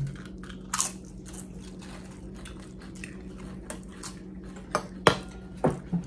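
Crisp tortilla chips being bitten and chewed close to the microphone: a run of short, sharp crunches, with louder bites about a second in and near the end.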